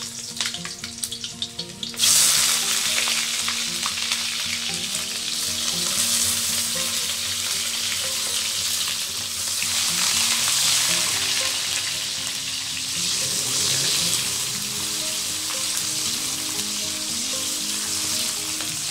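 Sliced red onions going into hot oil in a steel wok about two seconds in, setting off a loud, steady sizzle of frying that goes on as they are stirred with a wooden spatula.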